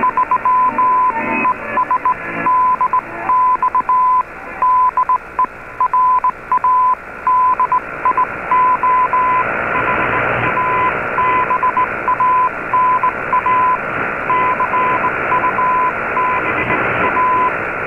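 A single beep tone of about 1 kHz keyed on and off in short and long elements, Morse code sent over the shortwave broadcast. It comes through the AM audio of an Icom IC-R8600 receiver with a hiss of static beneath it that grows louder about halfway through.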